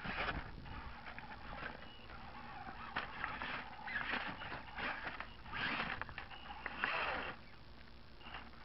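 Axial Yeti RC truck crawling over a pile of loose rocks: irregular clattering and knocking of its tires and chassis on the stones, with short bursts of electric motor whine, the loudest stretch in the second half.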